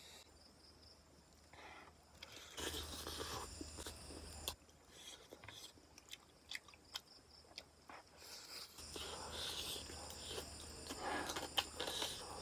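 A person chewing chicken curry and rice, with wet smacking mouth noises and many small clicks. The chewing is louder about two seconds in and again over the last few seconds.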